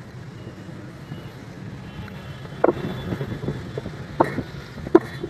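A few sharp knocks and metallic clunks, starting about two and a half seconds in, as a Salika sewing machine's metal head is handled and tilted back on its hinged base. A steady low hum runs underneath.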